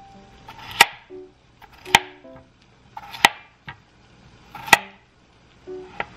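Chef's knife slicing through a peeled raw russet potato and knocking down onto a plastic cutting board, four main chops a second or so apart with a couple of lighter taps. Soft plucked background music plays underneath.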